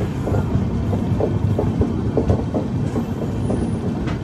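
Express train coaches running along the track: a steady rumble of wheels on rail, broken by irregular short knocks and clicks from the running gear, with one sharper click near the end.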